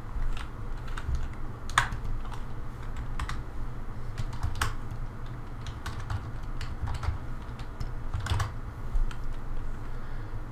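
Irregular taps and clicks from a computer keyboard, about ten spread out with a few sharper ones, over a low steady hum.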